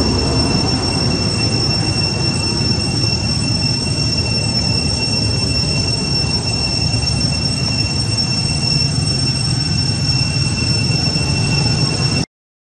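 A loud, steady high-pitched whine of two pure tones, held unchanging over a rough, rumbling rush of noise, all cutting off suddenly near the end.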